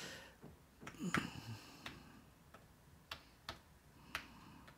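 Fingertip taps on a tablet's touchscreen while typing in a web address: about seven light, irregular clicks.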